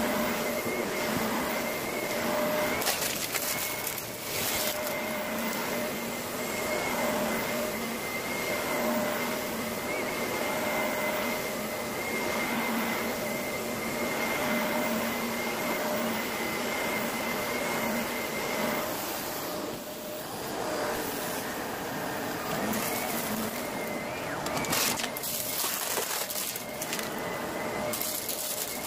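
Shark Lift-Away upright vacuum cleaner running steadily with a constant whine as it is pushed over rug and carpet. A few short clattering bursts come about 3 to 4 seconds in and again about 25 seconds in.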